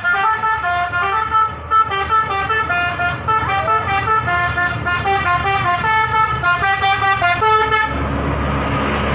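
Bus 'telolet basuri' multi-tone musical horn playing a quick melody of short stepped notes, which stops about eight seconds in. After it, the bus's engine runs with a steady rumble.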